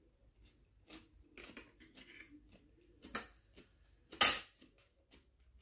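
Eating at a table: quiet chewing and small clicks of a metal spoon and wooden chopsticks against glass dishes. A louder brief noise comes about four seconds in.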